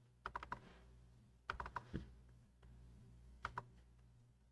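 Faint quick clicking from a computer's mouse and keyboard in three short bursts: just after the start, about a second and a half in, and about three and a half seconds in. A low steady hum runs underneath.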